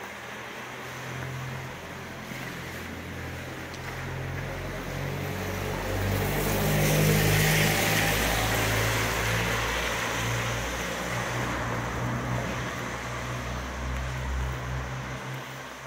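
A car driving past on the wet road: the hiss of its tyres on the wet tarmac, over a low engine hum, swells to its loudest about halfway through and then slowly fades.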